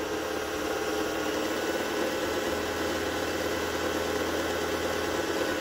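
Lion JS-1004 household sewing machine's motor running steadily while winding a bobbin, its handwheel clutch released so the needle stays still and only the bobbin winder turns.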